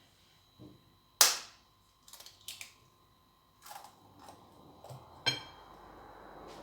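A sharp knock about a second in, followed by a few lighter clicks and taps and another knock near the end, as an egg is knocked against the mixing bowl and cracked in.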